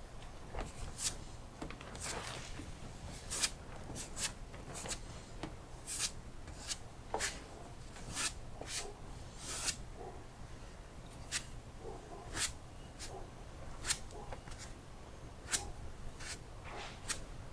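Irregular short scraping strokes of a hand tool worked over fairing filler on a boat's plywood cabin side, roughly one a second, with a few longer drawn-out strokes, over a steady low hum.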